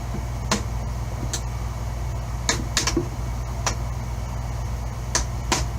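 Plastic laptop screen bezel clips snapping loose one after another as the bezel of a Dell Inspiron 15-7559 is pried off by hand: several sharp clicks at irregular intervals. A steady low hum runs underneath.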